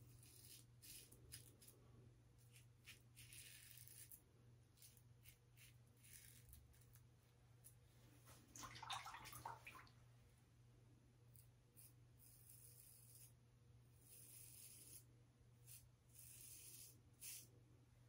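Faint, scratchy strokes of a plastic 3D printed double-edge safety razor cutting lathered stubble, in short irregular passes. One louder, longer scrape comes about nine seconds in.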